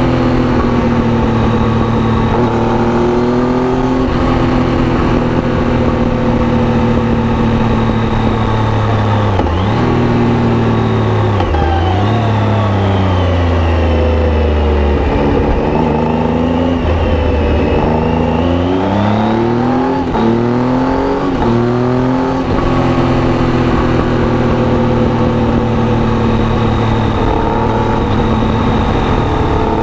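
2011 Triumph Tiger 800's three-cylinder engine through an aftermarket Arrow exhaust, under way. It runs steadily, then in the middle the revs drop and climb several times, with gear changes, before settling into a steady pull again.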